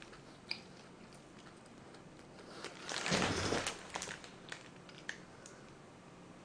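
Close-up mouth sounds of someone chewing a mozzarella burger: scattered soft clicks, with a louder noisy stretch of about a second roughly three seconds in.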